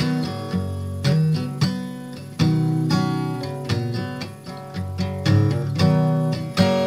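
Acoustic guitar music: chords struck every half second to a second, each ringing and fading before the next.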